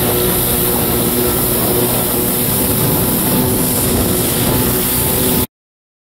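Kawasaki 650SX stand-up jet ski's two-stroke twin engine running steadily under a rushing noise. The sound cuts off abruptly about five and a half seconds in.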